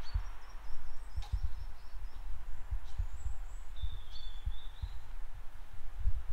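Wind buffeting the microphone in uneven low gusts, with small birds chirping: a run of short high notes in the first second, and a lower warbling phrase about four seconds in.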